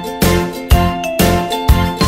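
Background music with a steady beat, about two strokes a second, under a melody of held notes.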